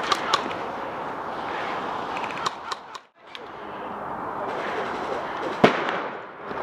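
Airsoft guns firing scattered single shots, sharp pops over steady background noise, with the loudest shot about two-thirds of the way in. The sound drops out briefly about three seconds in.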